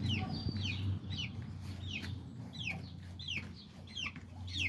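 Chicks peeping, a string of short high notes, each falling in pitch, about two a second, over a steady low hum.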